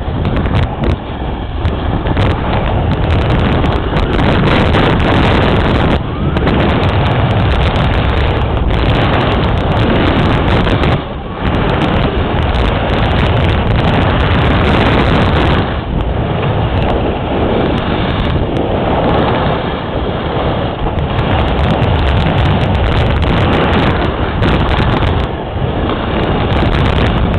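Wind rushing over the microphone while moving at speed: a loud, steady roar that dips briefly twice.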